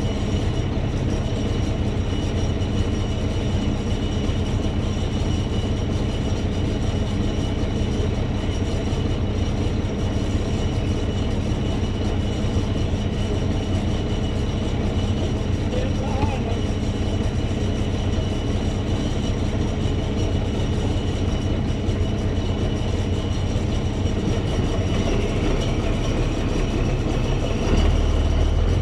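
A heavy vehicle's engine running steadily with a continuous rumble, rising briefly to a louder low surge near the end.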